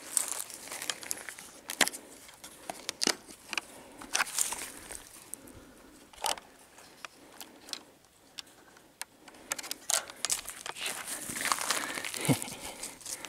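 Irregular sharp clicks and crinkly rustling from close-up handling, at the rate of about one or two clicks a second.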